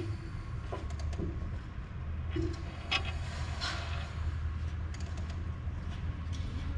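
Creaks and short clicks as the crankshaft of a Ford 300 inline six is turned slowly by hand to sweep a dial indicator around the bellhousing bore, over a steady low hum. The loudest creaks come about three to four seconds in.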